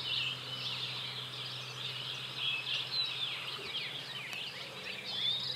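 Many small birds chirping together, a dense chorus of short, overlapping calls that rise and fall in pitch, over faint outdoor hiss.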